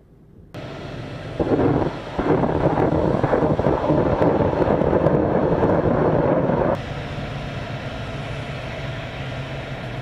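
Attack helicopter flying past, a loud rotor-and-turbine rumble that starts suddenly about half a second in and drops abruptly to a quieter steady rumble about two thirds of the way through.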